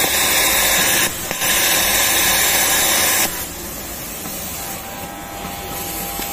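Industrial overlock machine sewing in two bursts with a loud hiss. It pauses briefly about a second in and stops about three seconds in, leaving a lower steady machine hum.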